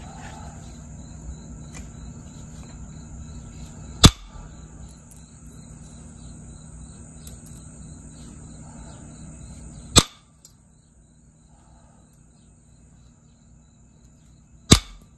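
Copper-tipped pressure flaker working the edge of a jasper preform: three sharp snaps as flakes pop off, about four seconds in, again six seconds later, and near the end. Crickets chirp steadily in the background.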